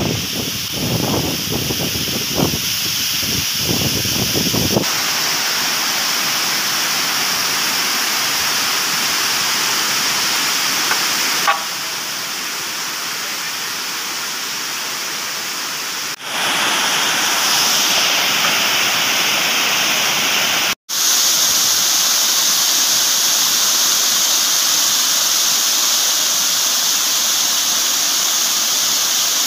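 Rain-swollen waterfalls pouring down rock cliffs: a loud, steady rush of falling water. For the first five seconds there are low, uneven gusts, like wind on the microphone, and the rush changes level suddenly at a few cuts.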